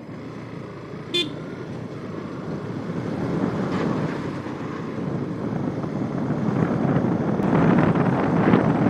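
Traffic and riding noise from a motorcycle moving through a crowded road, a steady rush that grows louder, with one short vehicle horn beep about a second in.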